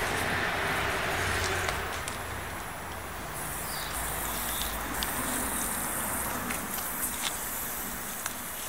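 Water hissing from a garden hose nozzle onto wet pavement, louder for the first two seconds, with scattered small clicks and splashes as a small dog laps at the jet.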